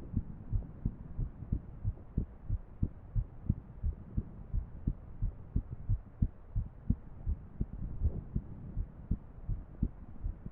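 A woman's heart beating in an irregular rhythm, heard as repeated low thuds at slightly uneven spacing.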